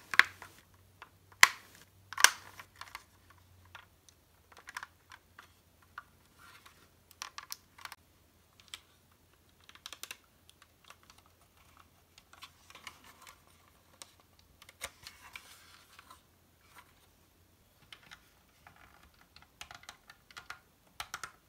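Hard plastic model-kit parts clicking and tapping as they are handled and pressed together, with three sharp snaps in the first couple of seconds and lighter, scattered clicks and rustling after.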